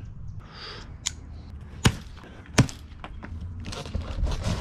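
Two sharp snaps about two-thirds of a second apart as the plastic packing straps around a cardboard shipping box are cut and spring loose, followed near the end by a rustle of handling noise.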